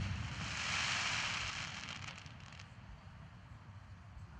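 Aerial fireworks shell's stars hissing and crackling just after the burst, the bang's echo dying away at the start; the crackle swells briefly, ends with a few sharp pops, and fades out after about two and a half seconds.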